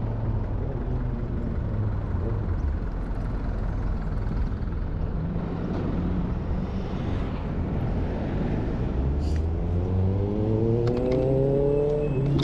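Kaabo Wolf Warrior electric scooter under way, with steady wind and road rumble on the microphone. Over the last few seconds the dual hub motors, driven by a Flipsky FT85BD controller, whine rising in pitch as the scooter accelerates.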